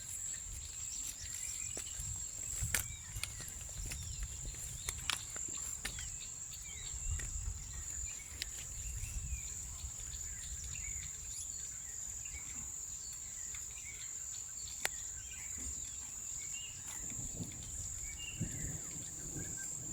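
Steady high-pitched insect trill, like crickets, with scattered short bird chirps, a low rumble underneath and a few sharp clicks.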